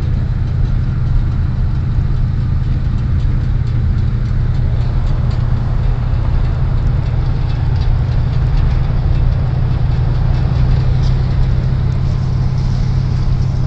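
Car engine and road noise heard inside the moving car's cabin: a steady low drone with no breaks.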